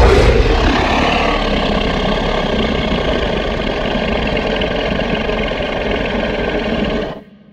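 A sound-effect clip: a loud, steady rumbling noise that starts suddenly and fades out about seven seconds in.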